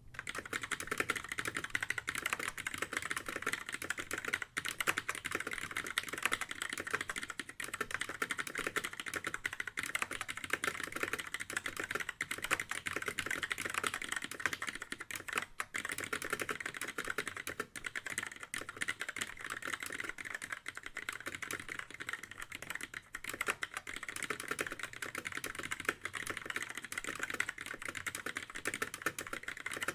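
Fast, continuous typing on a Keycool Hero 104 RGB mechanical keyboard with Kailh Black linear switches: a dense stream of key clacks.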